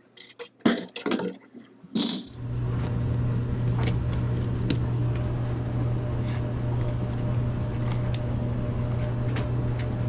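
Clicks and knocks of a metal panel and trim being handled. About two seconds in, a steady hum with rushing air starts and holds: a Mortex air handler's blower running, with a few taps of trim being fitted over it.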